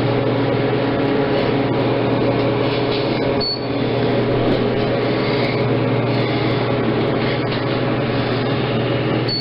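Kone hydraulic elevator in motion: a steady low machine hum under constant noise. A brief high tone sounds about three and a half seconds in.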